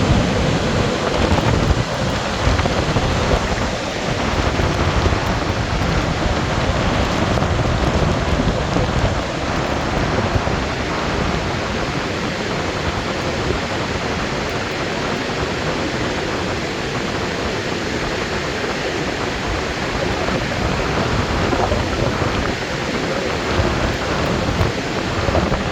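Augrabies Falls on the Orange River in flood: a loud, steady rush of heavy falling water.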